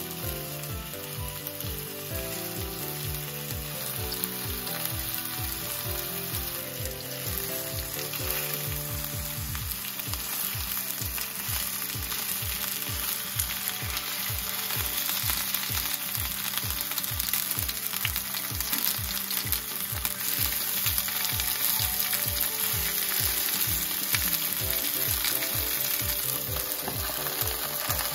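Pork-wrapped burdock rolls sizzling in hot oil in a frying pan, the sizzle growing louder as they brown. Background music with a steady beat plays underneath.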